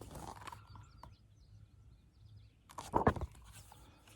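Quiet outdoor ambience with faint bird chirps, and one brief louder noise about three seconds in.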